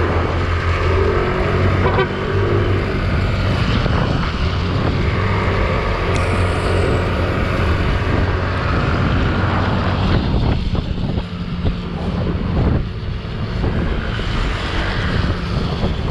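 Motorcycle engines running steadily.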